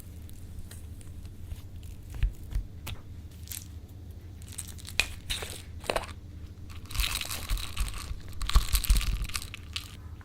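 Slime being worked by hand, with scattered sticky clicks and pops. About seven seconds in comes a denser spell of crackling that lasts a couple of seconds.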